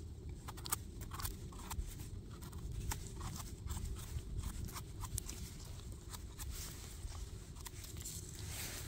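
Small knife scraping and trimming the firm stem of a freshly picked porcini, a run of short, crisp scrapes and clicks, over a steady low rumble.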